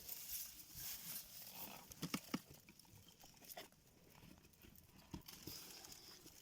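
A few faint, scattered knocks and clicks over a quiet hiss, the loudest pair about two seconds in.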